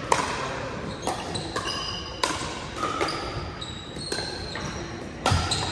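Pickleball paddles hitting a hard plastic pickleball during a rally, a string of sharp pocks at irregular intervals, the loudest about five seconds in, each echoing in a large gym.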